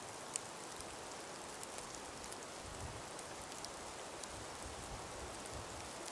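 Ambience of a calm breeze in an ice-laden winter forest: a steady soft hiss with scattered small ticks and patters, one sharper tick just under half a second in, and a few soft low rumbles in the middle.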